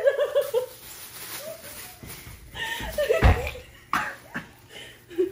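Loud laughter at the start and again about three seconds in, the second outburst with a heavy thump. Around four seconds in, a thin plastic shopping bag crinkles.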